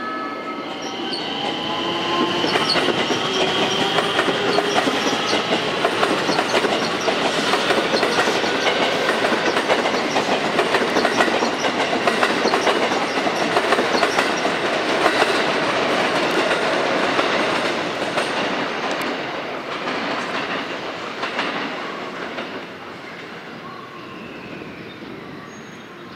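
JR West electric train running past on the station tracks, its wheels clicking steadily over rail joints and points. A high wheel squeal sounds in the first few seconds. The sound fades away over the last several seconds as the train moves off.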